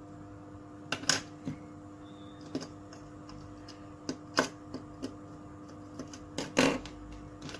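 Irregular clicks and taps, about ten of them spread unevenly, the loudest about a second in and near the end, over a steady electrical hum.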